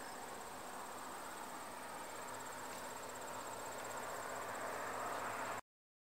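Outdoor field ambience with crickets giving a steady high trill over a soft, even hum. It cuts off abruptly about five and a half seconds in.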